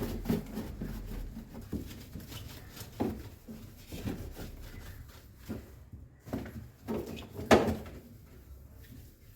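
Irregular knocks and clunks of fridge parts being handled and tugged at, a part that will not come out; the loudest knock comes about three quarters of the way through.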